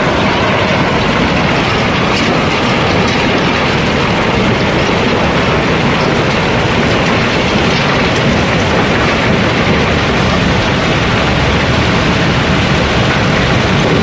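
Rounded river cobblestones flowing steadily down through an opening in a barge's hold floor: a continuous, dense clatter and rumble of stones knocking against each other.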